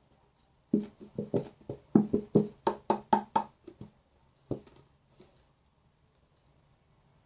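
A glue bottle knocked repeatedly against a container to shake out the last of the glue: about a dozen quick knocks over some three seconds, then one more a moment later.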